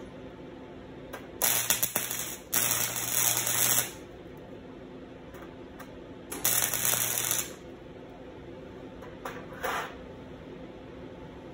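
Electric arc welder tacking steel chain links to a steel plate: three short bursts of arc, each about a second long with a low hum under them, two close together about a second and a half in and a third about six seconds in. A softer, shorter burst follows near the end.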